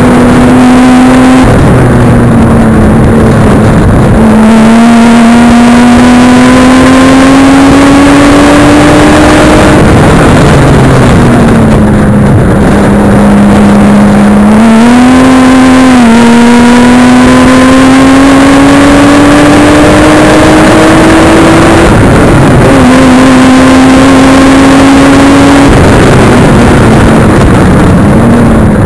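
Nissan Skyline straight-six engine running hard on track, very loud and clipped. Its note climbs slowly under power and drops several times as the car shifts gear or lifts for corners. A constant rushing noise lies over it.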